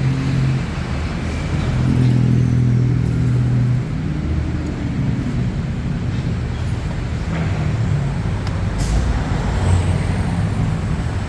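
Street traffic with a heavy vehicle's engine running close by, its steady hum strongest in the first few seconds before settling into general road noise.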